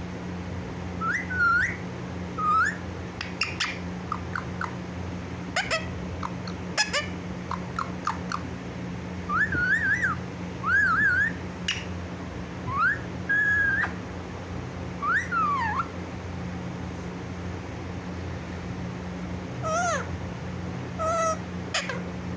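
Pet parrot whistling a string of short notes that glide up and down, with sharp clicks between them, going quiet for a few seconds before a couple of harsher calls near the end. A steady low hum runs underneath.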